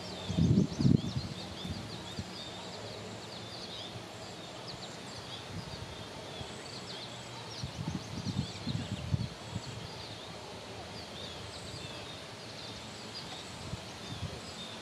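Small birds chirping with many short, high calls throughout, over a steady outdoor background hiss. Low rumbles break in twice: the loudest just after the start, another around eight to nine seconds in.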